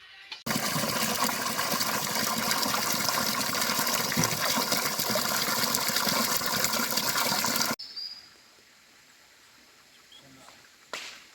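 Steady rushing of water that starts and cuts off abruptly, lasting about seven seconds, then quiet with a single click near the end.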